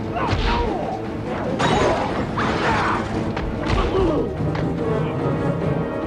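Film fight soundtrack: several hard punches and crashing impacts over a dramatic music score.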